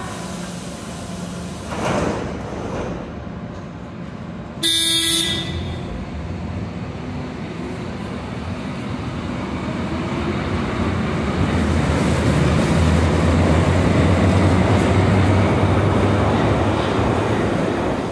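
A Berlin U-Bahn train gives a short horn toot about five seconds in, then pulls out of the station. Its motor hum and wheel rumble grow louder as it accelerates away along the platform.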